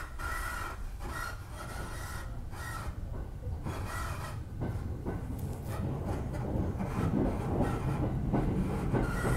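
Electric commuter train heard from inside the carriage as it pulls away, a low running rumble growing louder through the second half. A high double-toned beeping pulses on and off near the start and again at the end.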